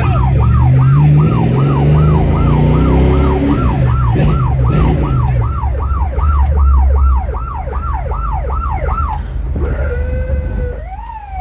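A siren yelping in quick falling sweeps, about three a second, then switching to a slower rising and falling wail near the end. Under it a car engine runs, heard from inside the cabin, and revs up and back down a few seconds in.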